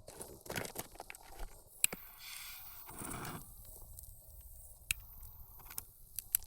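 Firewood burning hard in a Guruguru Fire L fire pit, crackling with a few sharp pops and a brief rushing hiss midway.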